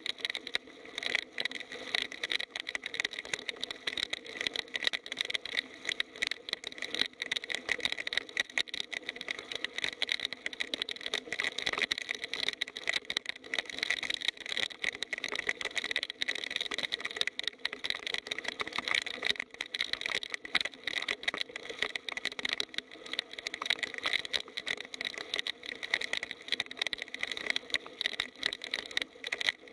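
Heavy rain falling steadily: a dense, unbroken hiss of countless drops.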